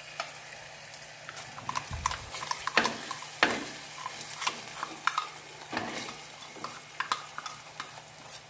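Steel spoon scraping and knocking against a clay cooking pot in irregular strokes as onions and tomatoes are stirred, with a faint sizzle of frying underneath.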